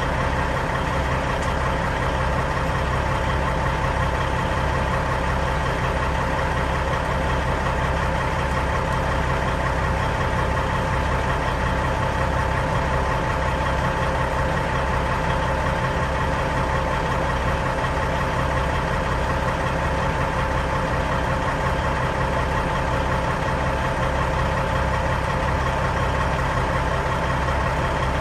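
1999 Kenworth W900L's diesel engine idling steadily, with an even low throb and a constant tone over it.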